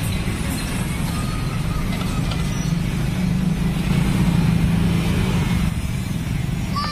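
Motor scooter engines and light street traffic passing over a level crossing, a steady engine hum that grows a little louder about four seconds in.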